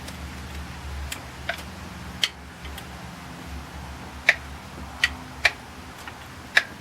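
Irregular sharp metallic clicks and clinks, about seven over several seconds, from hand tools at work while removing an engine's water pump.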